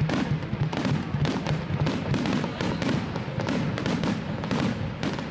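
Aerial fireworks in a dense barrage: shells bursting one after another, several bangs a second, with crackle between them.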